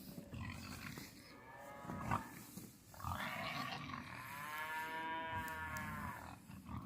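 Cattle bellowing (mooing) for their feed: a short call about a second in, then one long drawn-out moo near the middle.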